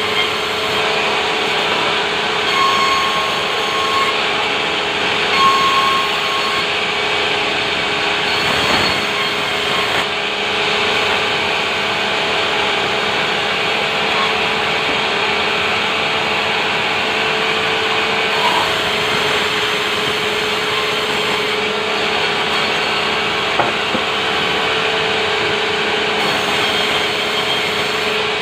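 Sawmill saw running and cutting timber: a steady, loud noise over a constant hum.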